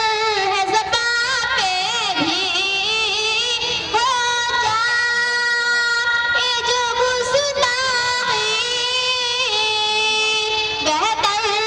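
A young girl singing a naat, a devotional Islamic poem, solo into a microphone. She holds long notes that waver and bend in ornamented runs, with a short breath about four seconds in.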